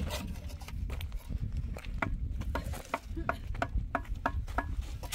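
Mason's steel trowel tapping and chipping a concrete block at a wall: a quick run of sharp knocks, about three a second, many with a short metallic ring.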